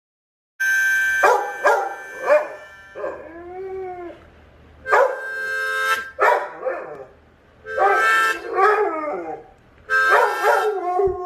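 Pit bull howling ('singing') in several drawn-out, wavering phrases with short breaks between them, starting about half a second in.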